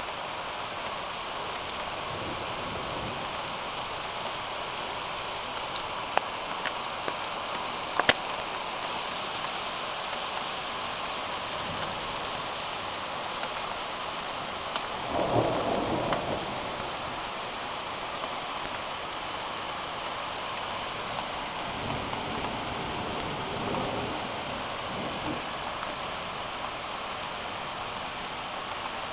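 Steady heavy rain hissing, with a few sharp ticks of drops about six and eight seconds in. A short rumble of thunder swells up about halfway through, and a fainter one follows near the end.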